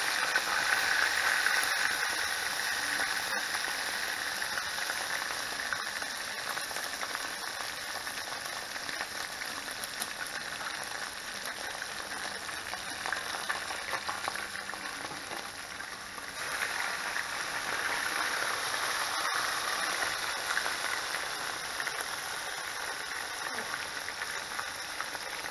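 Seasoned snook steaks frying in a pot of hot oil, a steady crackling sizzle that swells in the first few seconds and again about two-thirds of the way through.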